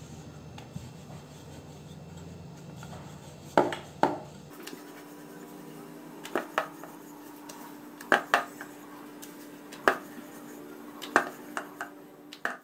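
Dough being rolled out with a rolling pin on a wooden rolling board, with about a dozen sharp, irregular clacks as the pin knocks against the board.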